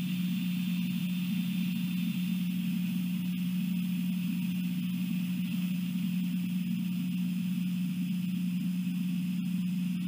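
A steady low hum with a fainter high-pitched hiss above it, unchanging throughout.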